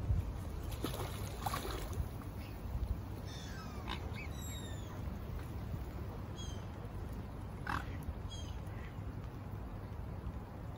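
Waterfowl calling close by, mute swans with their cygnets and Canada geese: a few short calls and some thin, falling high whistles, over a steady low rumble.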